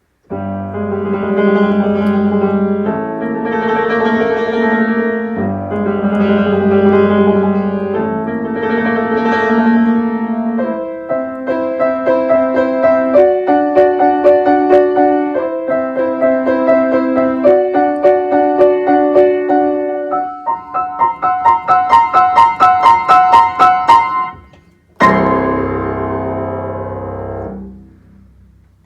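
Solo piano playing a short piece. It opens with slow, held chords, moves into quicker repeated chords that rise to fast high repeated notes, then pauses briefly. It ends on a loud low chord left to ring out.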